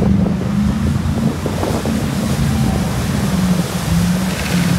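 Off-road truck engines running steadily as they drive through a mud pit, with wind buffeting the microphone.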